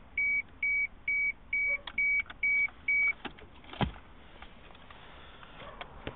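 A run of about seven short, even electronic beeps at one high pitch, roughly two a second, stopping about three seconds in. A single sharp knock follows about a second later.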